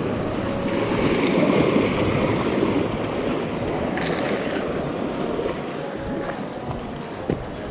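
Sea waves washing against a tetrapod breakwater, with wind buffeting the microphone; the wash swells about a second in and eases off after a few seconds.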